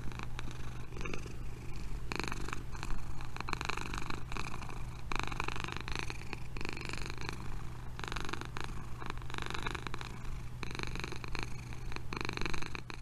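Domestic cat purring, a steady low rumble that swells and eases with its breathing about every three seconds.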